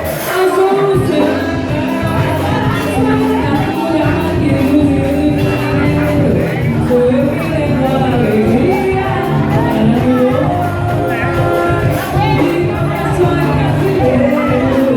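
Live band music with a singer, played in a hall.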